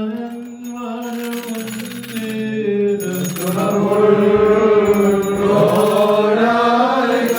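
Malankara Orthodox liturgical chant: voices singing a slow melody in long held notes that glide gently between pitches, growing fuller and louder about three seconds in.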